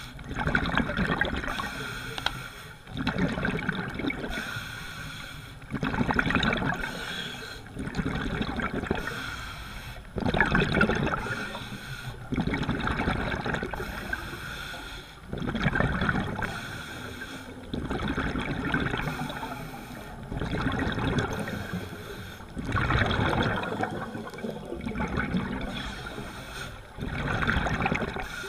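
A scuba diver breathing through a regulator underwater, heard through the GoPro's housing: a regular cycle of inhaled hiss and rushing exhaled bubbles, swelling every second or two.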